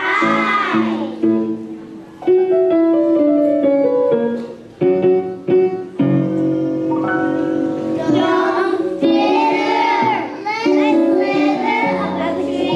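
Young children's voices singing together over piano accompaniment; from about two to six seconds in, the piano plays a short passage of separate notes on its own before the voices come back.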